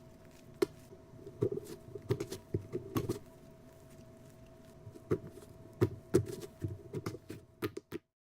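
Slime being pressed and worked by hand: sticky pops, clicks and short squelches in two flurries, over a faint steady hum. The sound cuts off abruptly near the end.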